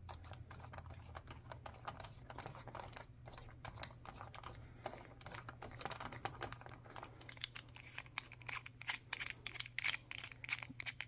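Light, irregular clicks and ticks of metal parts as a rod-end is screwed by hand into the body of an aftermarket engine torque damper. The clicks come more often in the second half.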